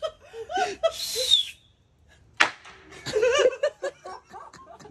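Two wooden boards slapped together once, giving a single sharp crack like a firework bang after a brief hush. Laughter comes before and after it.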